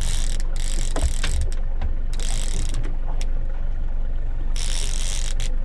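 A fishing reel clicking and ratcheting in three short bursts as line is worked against a hooked, hard-fighting fish, over the steady low hum of the trolling boat's engine.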